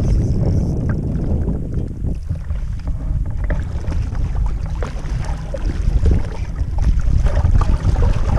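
Wind buffeting the microphone with a steady low rumble, over choppy water lapping against the hull of a small rowing boat with irregular small splashes.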